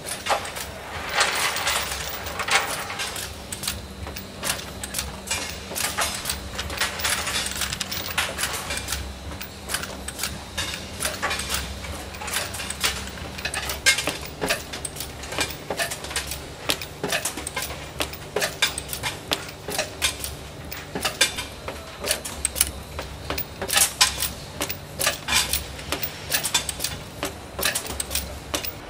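Automatic bolt-making machine running: a steady mechanical hum under rapid, irregular metallic clinking and clatter as steel bolt blanks run down the feed rail and through the dies.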